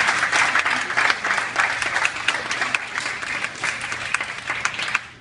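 Audience applauding, a dense patter of many hands clapping that thins out and fades toward the end.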